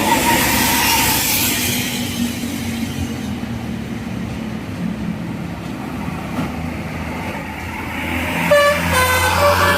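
Mercedes-Benz OH 1626 diesel tour buses running past, a rushing pass in the first couple of seconds and then a steady low engine drone. Near the end, a Basuri telolet horn starts playing its tune of stepped, changing multi-tone notes.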